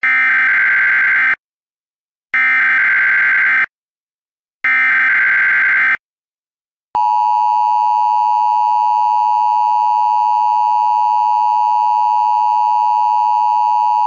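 Emergency Alert System header: three short bursts of digital data tones, each a little over a second long and about a second apart. About seven seconds in, the steady two-tone EAS attention signal starts and holds.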